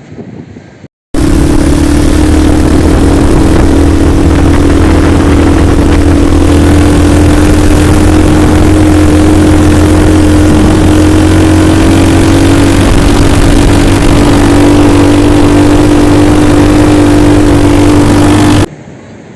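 ATV engine running steadily at speed, very loud and close. It cuts in suddenly about a second in and stops abruptly near the end.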